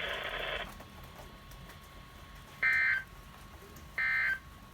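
Emergency Alert System end-of-message data bursts on a NOAA Weather Radio broadcast: short, buzzy digital squawks about a third of a second long, two of them about a second apart, signalling the end of the weekly test alert. A hiss cuts off under a second in, before the bursts.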